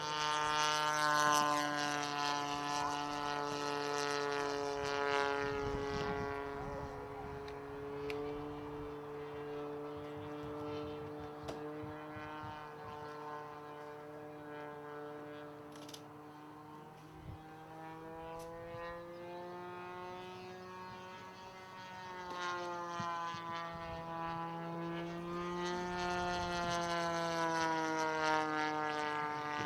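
Engine and propeller of a radio-controlled model Focke-Wulf Fw 190 in flight, a steady drone whose pitch rises and falls gently as the plane passes, loudest about a second in and again near the end.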